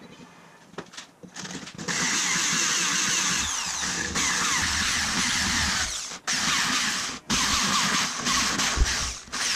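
Electric drill running under load, a twist drill bit cutting into the steel end boss of a tube axle through a hex-nut guide. A few short spurts about a second in, then steady drilling from about two seconds, stopped briefly twice near the six- and seven-second marks.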